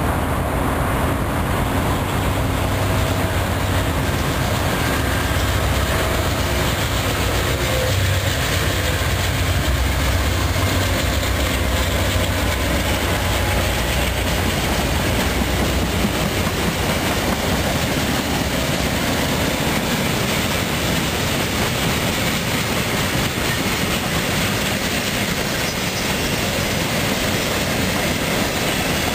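A CSX freight train passing close by. The diesel locomotives led by a GE C40-8 give a strong low rumble as they approach and go by in the first half. Loaded coke hopper cars follow, rolling past with the clickety-clack of wheels over rail joints.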